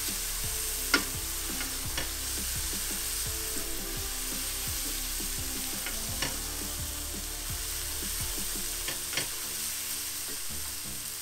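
Curry sauce base of spices cooking in oil sizzling steadily in a pan while being stirred, with a spoon knocking against the pan a few times, sharpest about a second in.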